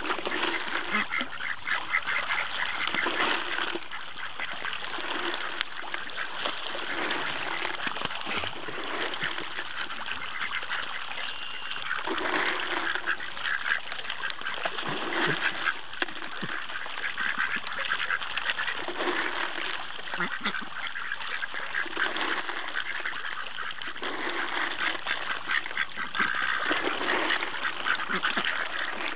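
A flock of domestic ducks quacking continuously, with water splashing as they jostle and feed on the surface.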